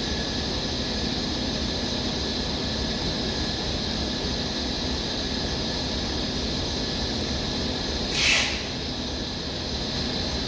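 Toilet-paper rewinding machine running, a steady machine hum with a high whine, and a short hiss about 8 seconds in.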